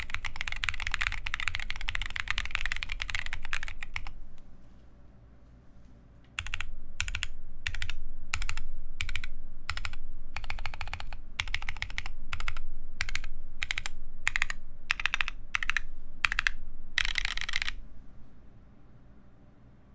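Mechanical keyboard with lubed Holy Boba tactile switches, KAT Alpha keycaps and a carbon fibre plate, typed on fast and continuously. The typing pauses about four seconds in, resumes as a string of short separate bursts of keystrokes, and stops a couple of seconds before the end.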